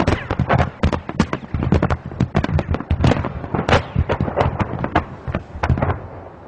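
Rapid, irregular cracks and pops, several a second, following a blast of roughly 100 tons of explosives, dying away about six seconds in.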